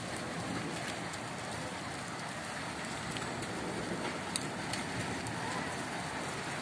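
Hailstorm: heavy rain hissing steadily, with a few sharp ticks of hailstones striking.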